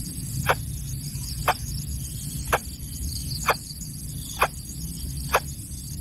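Greater coucal chick giving short, sharp calls about once a second, six in all, over a steady low rumble.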